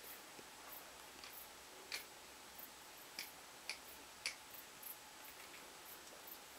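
Faint, scattered sharp clicks and ticks over a quiet background hiss, four of them louder, between about two and four and a half seconds in.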